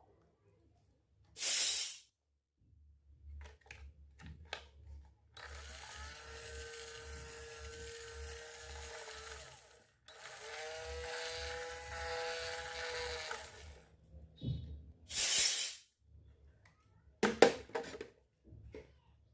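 A small battery-powered toy motor, as in a toy kitchen appliance, running with a steady whine twice: once for about four seconds, then after a brief stop for about three and a half seconds. Short, loud hissing bursts come before and after, with a few light clicks near the end.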